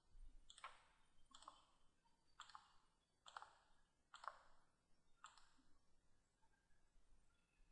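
Faint clicks of a computer mouse button, about six of them roughly a second apart, as lines are selected one after another.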